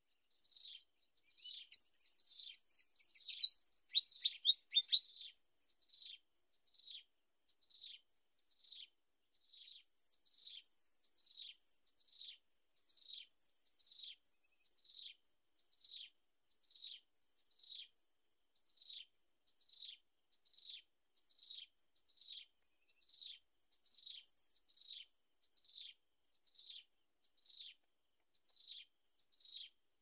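Malaysian pied fantails calling: a steady series of short, falling chip notes, about three every two seconds, with a louder flurry of denser, higher calls a couple of seconds in.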